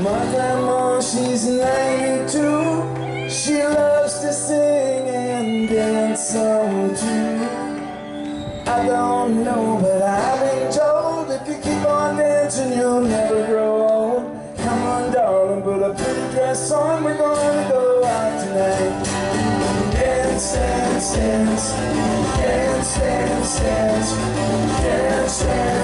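Live rock band playing through the stage sound system, led by acoustic guitars with electric bass, a melodic lead line and drums and cymbals that settle into a steady beat in the second half.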